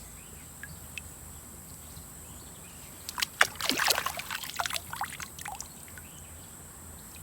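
Water splashing and gravel crunching in a shallow creek bed, a quick jumble of sharp splashes and scrapes lasting about two and a half seconds, starting about three seconds in. A steady high insect drone runs behind.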